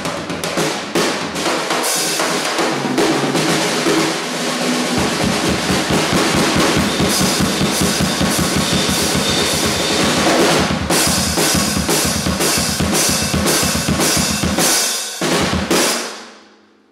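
A Gretsch drum kit played continuously with sticks: snare, bass drum and cymbals in a steady stream of strokes. The playing stops about a second before the end and the cymbals ring away to quiet.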